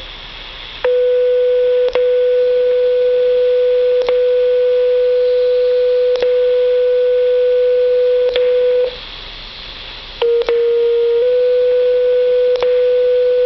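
Two-tone sequential paging tones over a two-way radio's speaker: one long steady tone for about eight seconds, a second or so of radio hiss, then a one-second slightly lower tone followed by a longer tone. This is a fire pager tone-out, setting off the receiving pagers before the voice page. Faint clicks come about every two seconds.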